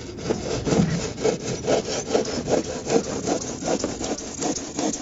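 Hand saw cutting through an expanded polystyrene (EPS) insulated concrete form block, rasping in even back-and-forth strokes about two to three a second.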